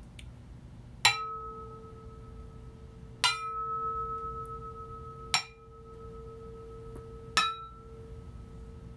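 Sony PS-X800 turntable platters struck four times with a wooden dowel, about two seconds apart, each tap leaving a sustained bell-like ring at a low and a higher pitch that carries on between strikes. This is a resonance test of stock and damping-modified platters.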